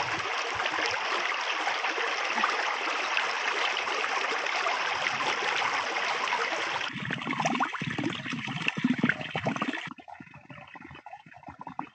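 Small, shallow stream running over stones: a steady rush of flowing water. About seven seconds in it turns uneven and choppier, and near the end it drops much quieter.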